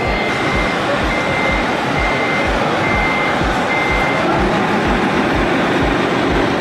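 A truck's reversing alarm beeps five times at an even pace, a little under one beep a second, then stops a little past halfway. Under it are a dense background noise and a steady low thump, about two a second.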